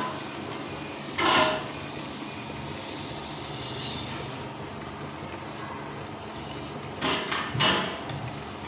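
Sugar poured from a plate into a large aluminium pot of grated carrots, a soft sandy hiss as it slides in, with a sharp knock about a second in and a few more knocks on the metal pot near the end.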